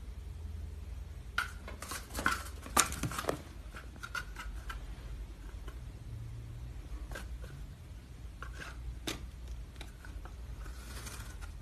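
Cat playing on a carpeted floor: a quick cluster of sharp clicks and scrapes a second or two in, then a few scattered ones, over a low steady hum.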